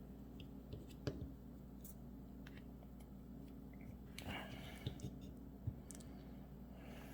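A few light clicks and taps of small parts and tools being handled while setting up to solder the negative terminal of an XT90 battery connector, over a steady low hum.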